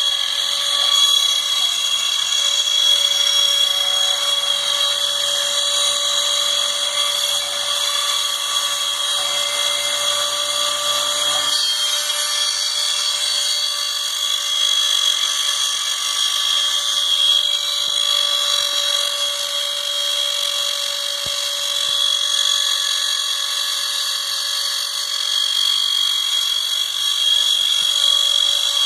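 Nema 23 stepper motors of a homemade bicycle-chain-driven CNC machine running, giving a steady whine of several high tones. A faint low hum underneath drops out about twelve seconds in.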